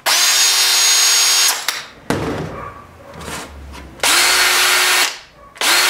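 Two 20V cordless drills free-running with no load, one after the other. A Porter Cable drill's motor whirs for about a second and a half. After a pause, a Stanley drill runs in two short bursts of about a second each, at a slightly lower whine. Each burst rises quickly in pitch as the trigger is pulled, and the two motors sound different, a sign that the drills carry different motors.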